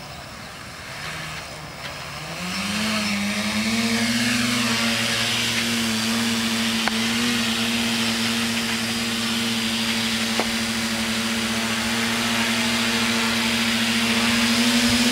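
Brushless electric motors and propellers of a homemade RC multirotor spinning up with a rising whine about two seconds in, then settling into a steady, loud hover buzz as it lifts off.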